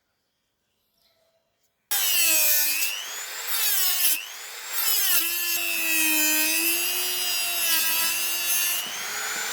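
A small high-speed power tool starts up about two seconds in and works the material. Its motor whine sags and recovers in pitch several times as it bites, with a rough scraping sound over it.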